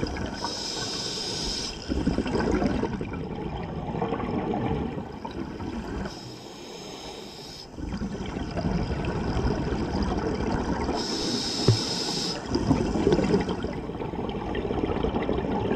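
Scuba diver breathing through a regulator underwater: three hissing inhalations about five seconds apart, each followed by a bubbling exhalation.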